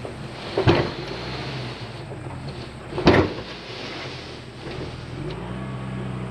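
Kubota excavating machine's diesel engine running steadily, with two sharp knocks about a second in and about three seconds in; the engine note rises a little near the end as it takes on load.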